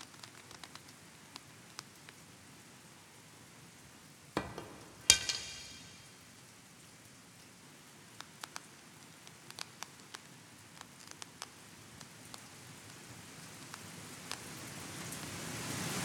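Japanese bow and arrow in a kyudo dojo: a light click, then a sharp snap with a brief ringing decay about five seconds in, followed by faint scattered ticks. Over the last few seconds a rush of noise swells and then cuts off suddenly.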